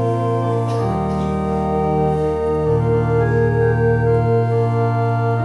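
Organ playing the introduction to the responsorial psalm: slow held chords over a deep bass, one upper note pulsing with a steady tremolo.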